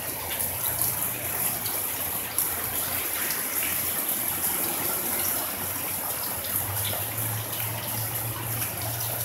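Heavy rain pouring down steadily, the hiss of the downpour dotted with small drip and splash ticks.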